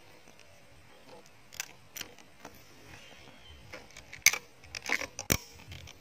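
Scattered sharp clicks and knocks from handling an air rifle and the camera fixed to its scope. They are sparse at first and come thick and fast from about four seconds in, the loudest one there.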